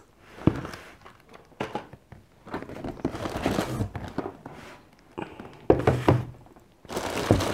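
Cardboard boxes and packaging being handled: rustling as items are lifted out of a shipping carton, with several thunks and knocks as small product boxes are set down on a table, the loudest about six seconds in.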